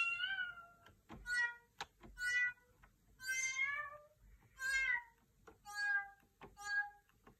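Hydrasynth Explorer synthesizer playing a synthesized cat-meow patch: about seven meows in a row, some short and some long with a rise and fall in pitch. The length of each meow follows key velocity: a hard, fast press gives a short meow, a slow press gives a long one.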